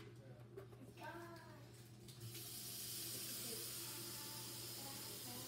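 Kitchen tap turned on about two seconds in, its water running steadily into an electric kettle.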